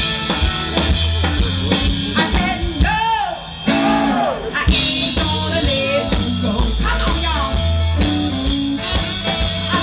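Live blues-rock band playing: drum kit, bass guitar, organ and electric guitar together, with notes that slide up and down.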